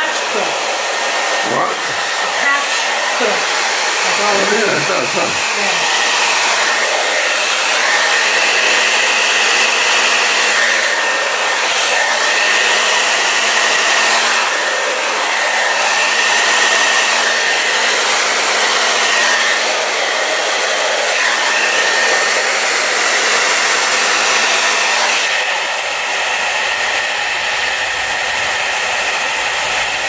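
Handheld hair dryer running steadily, a constant rushing of air with a faint steady whine, blowing across wet acrylic pour paint. Its sound changes slightly about 25 seconds in.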